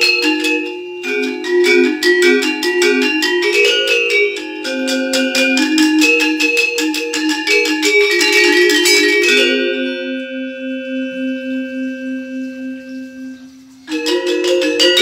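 A pair of Balinese gendèr wayang, bronze-keyed metallophones, played together with mallets in a fast run of interlocking notes. About nine seconds in the playing stops on a held note that rings and fades for some four seconds, then the fast playing starts again abruptly near the end.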